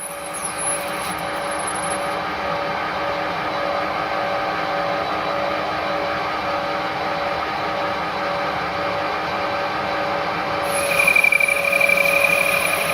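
Stanko 1A616 manual lathe running through a carbide-insert parting cut: a steady machine hum with a faint regular pulse. About eleven seconds in, a high whine sets in and lasts a couple of seconds, louder and wavering.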